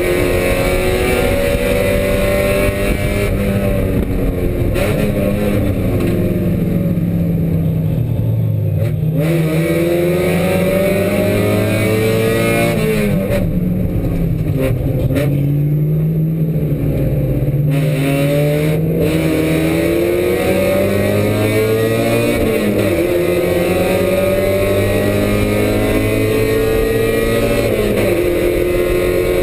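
Spec Miata's four-cylinder race engine heard from inside the cabin under full race load, climbing in pitch through the gears. The revs fall back twice, about four and thirteen seconds in, as the car slows for corners, then pull up again.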